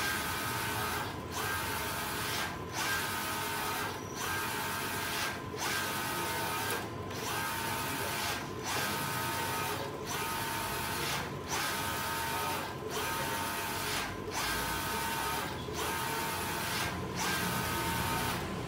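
Mimaki JV33 wide-format inkjet printer printing on vinyl: the printhead carriage whirs across the media with a steady whine on each pass, then goes briefly quiet as it reverses, about once every second and a half.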